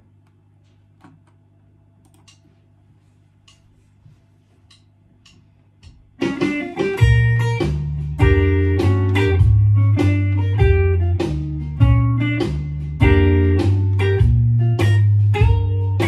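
Low steady hum with a few faint clicks for about six seconds, then a Telecaster-style electric guitar starts a blues riff, with low bass notes repeating in a steady rhythm under higher notes and chords.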